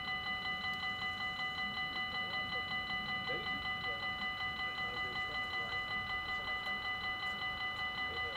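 Dutch level crossing's electronic warning bell ringing rapidly and evenly, about four strikes a second, as the crossing signals a train is coming.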